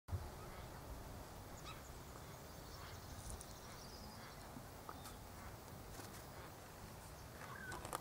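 Faint garden ambience: a steady low rumble with a few short, faint bird chirps and small clicks scattered through it.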